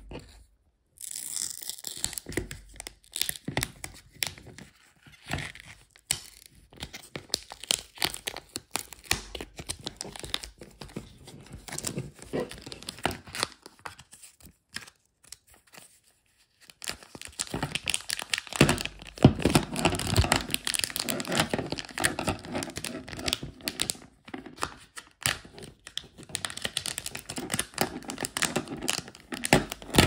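Clear plastic shrink wrap being torn and crinkled off a card case's retail box: irregular crackling and tearing throughout, louder in the second half.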